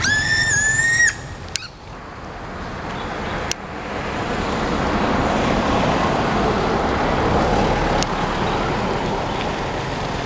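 A high whistle-like call in the first second, then steady road traffic noise that builds up over a couple of seconds and holds, with a few sharp clicks.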